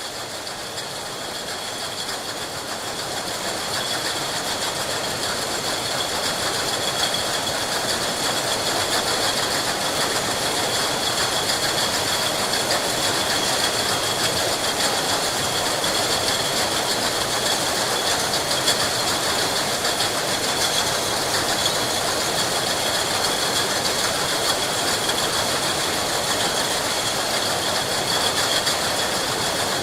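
Glass bottles clinking together in a continuous dense clatter on a bottle factory line, with machinery running under them and a steady high whine. It builds over the first few seconds, then holds.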